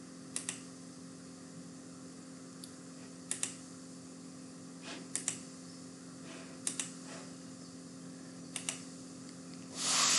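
Sharp clicks at a computer, coming as quick pairs about five times, over a steady low electrical hum. Near the end a louder rush of noise lasts about half a second.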